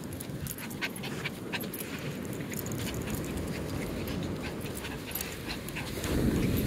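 Chihuahua panting in short, quick breaths close by. Surf and wind rumble behind it and grow louder near the end.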